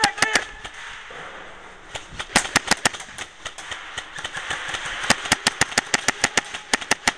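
Airsoft guns firing in strings of sharp cracks: a few shots at the start, a quick run of about six shots roughly two and a half seconds in, and a longer rapid run of about six to seven shots a second from about five seconds on.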